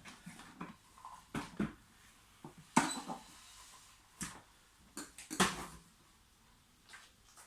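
Irregular knocks and clicks of something being handled, about eight to ten separate hits with the loudest near three seconds in; no motor is running.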